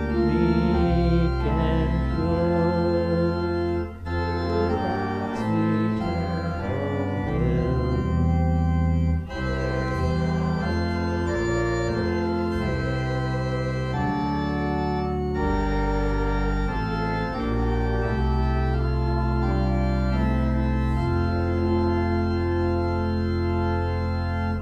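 Church organ playing sustained chords over a steady bass line, ending on a long held chord that cuts off right at the end.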